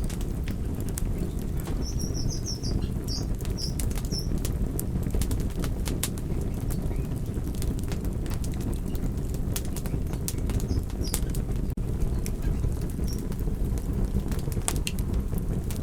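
Wood fire crackling, with scattered sharp pops and snaps over a steady low rumble of burning.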